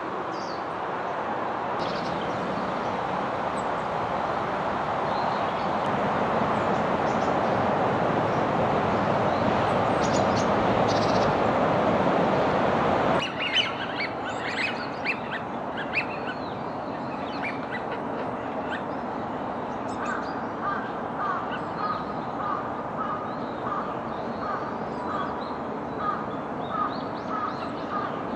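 A steady rushing noise swells for the first half and cuts off suddenly. Then wild birds call: scattered short calls, and later a long run of short, evenly repeated notes, about two a second.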